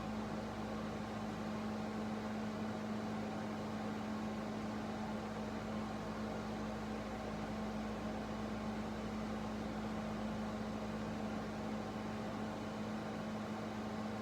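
Steady room hum: a constant low tone over an even hiss, unchanging throughout, with no audible heartbeat or other events.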